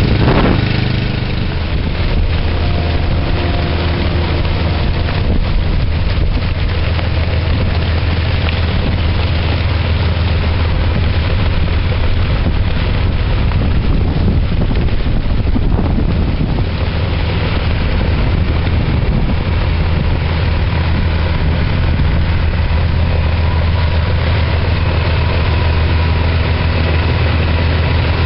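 Snowplow truck's engine running with a steady low drone under a constant rushing noise.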